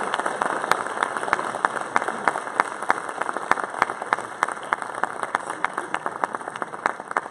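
Audience applauding in a hall, the clapping slowly thinning out and growing quieter.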